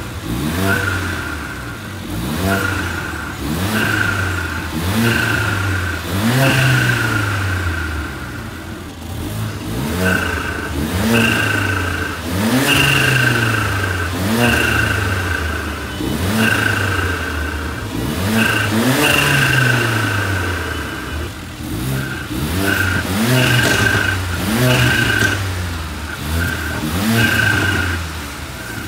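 Mercedes-AMG CLA45's turbocharged 2.0-litre four-cylinder being blipped over and over while stationary, each rev rising and dropping back, roughly one every second or two. The engine is breathing in turn through the stock airbox with its cover, the stock airbox without its cover, and a K&N drop-in filter.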